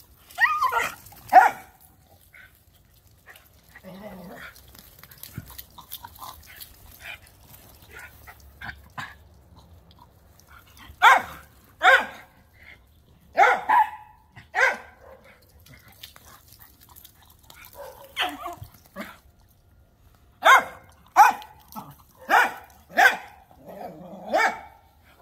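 Small dogs play-barking while chasing each other: short sharp barks in scattered pairs, then a quick run of about seven barks over the last five seconds.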